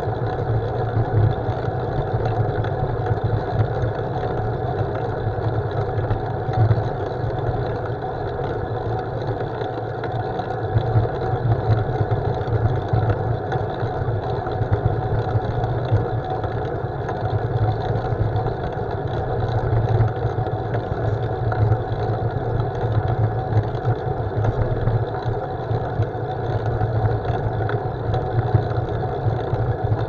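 Steady wind buffeting and road rumble on a bicycle's handlebar-mounted camera microphone while riding along an asphalt road, a constant low rumble with no breaks.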